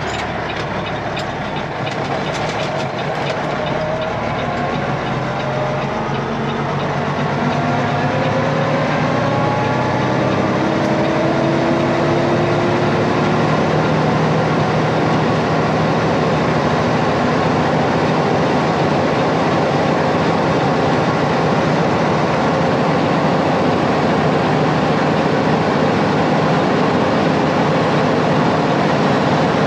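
Heavy tow truck's diesel engine and road noise while driving. The engine's pitch climbs steadily over about the first dozen seconds as the truck picks up speed, then holds at a steady cruise.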